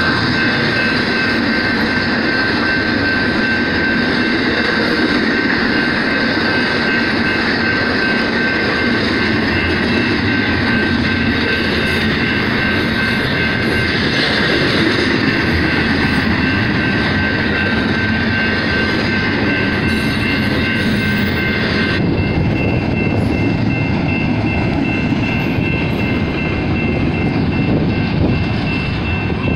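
Double-stack intermodal container train passing at speed: a steady, loud rumble and rattle of well cars rolling over the rails, with a thin high ringing tone held over it.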